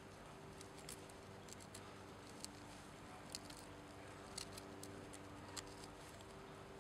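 Mora Bushcraft knife blade shaving thin curls down a fatwood stick to make a feather stick: about ten faint, short scraping clicks, one for each stroke, spaced irregularly.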